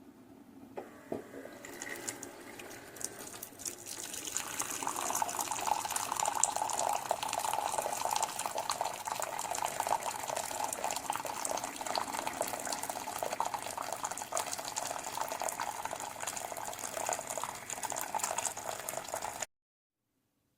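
Keurig K-Classic coffee maker brewing, liquid streaming steadily into a cup. It builds up over the first few seconds and cuts off suddenly about a second before the end.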